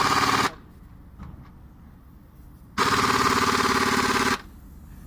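Pneumatic impact wrench hammering in two bursts: the first stops about half a second in, and the second runs for about a second and a half near the middle. It is a fast, loud rattle, as when bolts are run down during engine reassembly.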